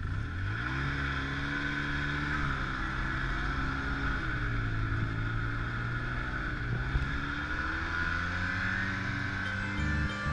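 Snowmobile engine running as it is ridden, its pitch rising about half a second in, then dipping and climbing again a few times, with a steady hiss above it.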